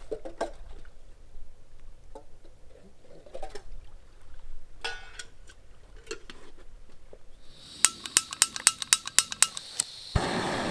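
Scattered faint clinks and knocks, then the piezo igniter of a small backpacking canister stove clicking rapidly about ten times. Near the end the burner catches and the propane hisses steadily.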